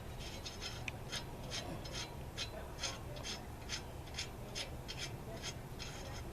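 Lug wrench working a car's lug nut loose, a short metallic rasp about twice a second as the wrench is turned stroke by stroke.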